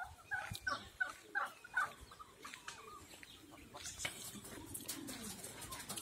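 Domestic turkeys clucking: a quick run of short calls over the first two seconds, fainter after that.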